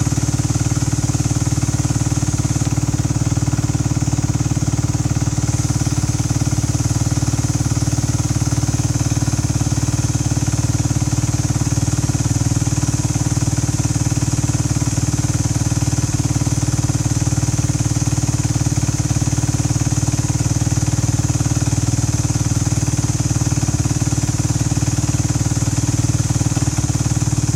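2012 Kawasaki KX450F's 449 cc single-cylinder four-stroke engine running steadily at an even speed with no revving, during its first heat cycle after a top-end rebuild.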